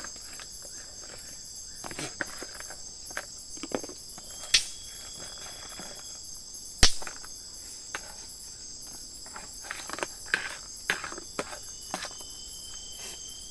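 Steady high chorus of insects, with scattered knocks and clicks of things being handled around the camp; a sharp knock about seven seconds in is the loudest.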